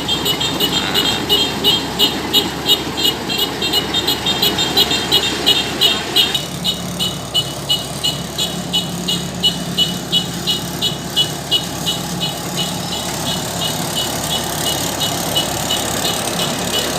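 Kubota combine harvester's diesel engine running, with a rapid regular ticking of about four beats a second over it that fades after about six seconds; a steady low hum takes over from there.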